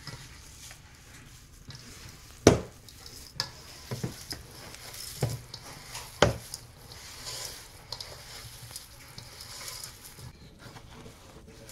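Hands kneading and squeezing ground meat in a stainless steel mixing bowl: soft wet squishing, with a few sharp knocks of hands and meat against the metal bowl, the loudest about two and a half and six seconds in.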